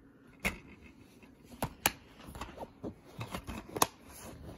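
Plastic DVD case being handled, with a scatter of sharp clicks and taps. The loudest come just before two seconds in and again near four seconds.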